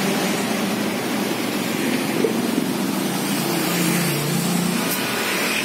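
Steady street traffic noise from passing vehicles.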